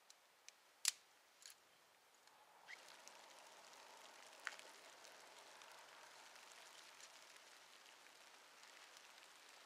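Two short, sharp strikes about a second in as the stove is lit. From about three seconds on, the kindling in a small twig stove catches and burns with a faint steady crackle and hiss, with scattered small pops.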